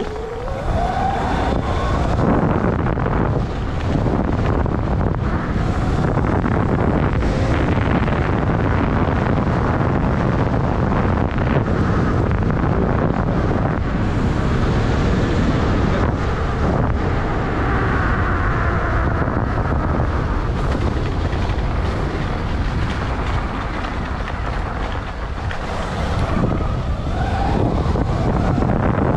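Wind buffeting the microphone while riding an off-road motorbike around a dirt track, with a rising motor note near the start and again near the end as the bike speeds up.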